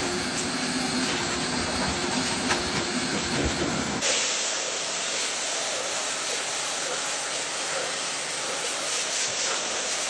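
A vacuum nozzle sucking across a rubber car floor mat: steady suction noise. About four seconds in it cuts to a pressure-washer jet hissing against the hanging mat, a steadier, higher spray sound.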